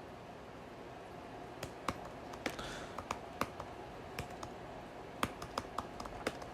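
Typing on a computer keyboard: faint, irregular keystrokes, few in the first second and a half, then several a second.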